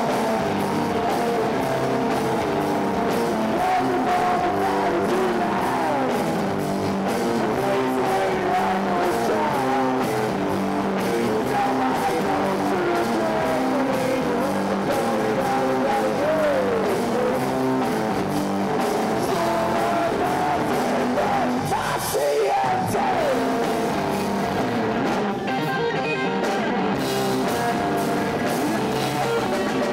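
Live punk-rock band playing loud: distorted electric guitar, bass and drum kit, with a lead line that slides and bends in pitch over the riff.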